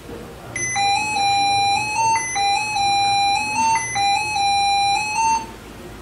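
Lenovo ThinkPad T470s sounding its SmartBeep error code: a quick run of beeps stepping up and down in pitch, the same phrase played about three times. The code it carries is 0001, a reset error (platform reset not de-asserted).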